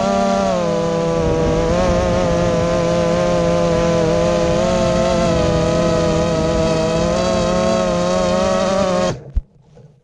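Brushless motors and propellers of a 5-inch FPV race drone buzzing steadily, heard from the drone's onboard camera, the pitch wavering slightly with throttle. About nine seconds in the motors cut out abruptly and a single thud follows as the drone drops onto the grass.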